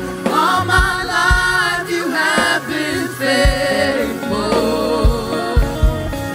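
Live worship band music: a singer holds and bends long sung notes without clear words, over sustained instrument chords and kick drum hits.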